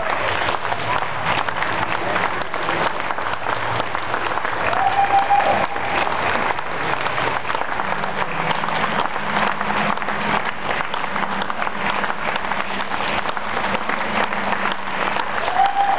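A crowd of people applauding steadily, with a short rising cheer about five seconds in.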